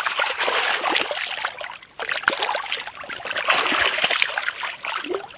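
Rubber boots squelching and sloshing through thick wet mud and muddy water, with many small splashes and sucking smacks. It breaks off briefly a little under two seconds in.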